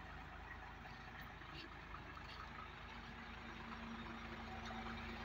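Heavy truck running: a steady engine and road noise, with a steady hum of one pitch coming in about three seconds in.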